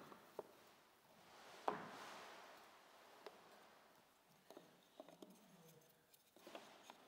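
Near silence with faint taps and clicks of wooden base trim pieces being handled and fitted at a wall corner. One sharper click comes just under two seconds in, and a few small taps follow later.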